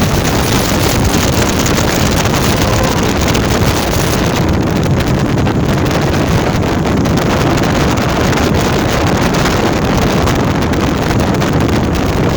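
Bass boat running at high speed under its Yamaha 250 outboard, a steady loud rush of engine and water noise with heavy wind buffeting the microphone.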